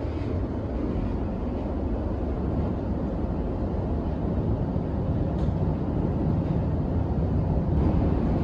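Steady low rumble inside the carriage of an electric commuter train running at speed.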